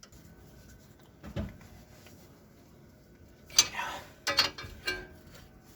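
Two 15 mm wrenches clinking and knocking on a nut and bolt as the bolt is broken loose. There is a single knock about a second in, then a cluster of metallic clinks near the end.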